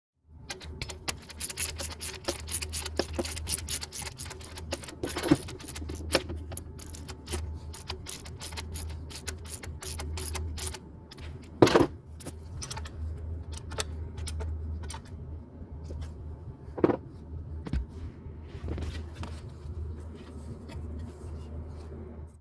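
Metal hand tools clicking and clinking during belt work, dense rapid ticks at first, with a few louder knocks, one about halfway through. A steady low hum runs underneath.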